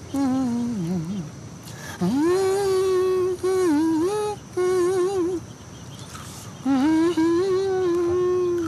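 A man humming a tune to himself in three melodic phrases, with long held notes and short pauses between them.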